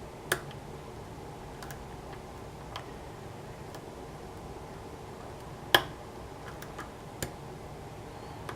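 Lock pick working the pins of a pin-tumbler challenge lock under tension: a few scattered small clicks, the loudest a little before six seconds in, over a steady low background hiss.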